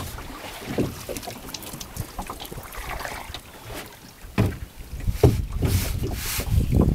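Wind buffeting the microphone on a small open fishing boat, with irregular knocks and clatters of gear against the hull as a fyke-net line is hauled in by hand; the loudest knocks come about four and a half and five seconds in.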